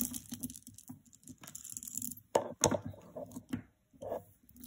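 Acrylic faux pearl necklace handled on a cloth-covered table: rustling for the first two seconds, then several sharp clicks of the beads knocking together as it is spread out.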